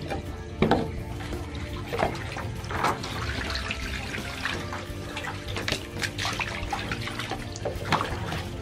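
Water poured from a plastic dipper splashing onto a wet screen-printing screen, with hands rubbing the mesh to wash out the stencil emulsion after exposure.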